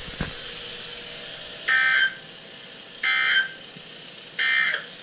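NOAA Weather Radio's EAS end-of-message code: three short, harsh two-tone data bursts about a second and a half apart, marking the end of a warning broadcast. They play over a faint steady hiss.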